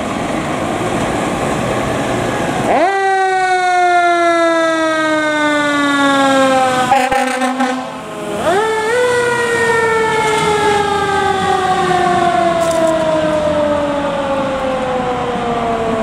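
A fire engine's mechanical siren, a Federal Q2B, winding up. Each time it rises quickly in pitch, then coasts slowly down for several seconds. It starts about three seconds in, winds up again about halfway through, and starts a third rise at the end, over the truck's engine noise at the start.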